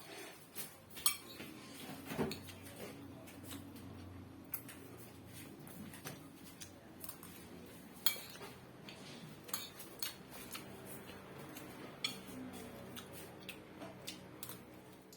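Dishes and cutlery clinking and knocking: irregular light clicks and clatters, the loudest about a second in and about eight seconds in, over a low steady background hum.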